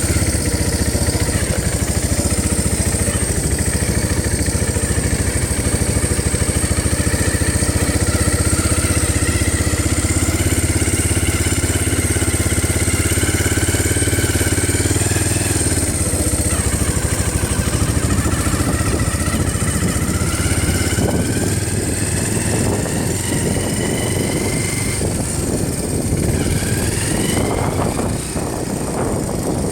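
ATV engine running while being ridden, its pitch slowly rising and falling with the throttle, over a steady high whine.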